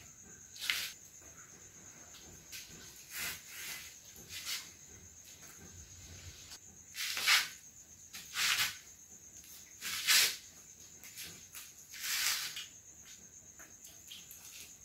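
Crickets chirping steadily, a continuous high trill, with several short breathy puffs and hisses over it as people eat.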